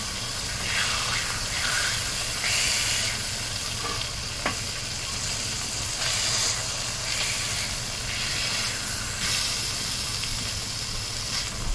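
Bacon sizzling on a flat-top griddle, the hiss swelling and easing every few seconds as the strips are turned with a metal spatula. About four and a half seconds in there is a single light tap.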